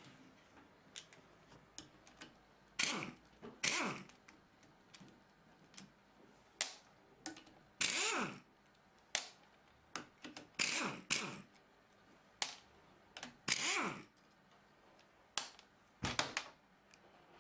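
Pneumatic impact wrench firing in a dozen or so short bursts, each up to about half a second, as bolts are undone on a Jaguar Mk1 steering box during strip-down. Lighter clicks and knocks of metal parts fall between the bursts.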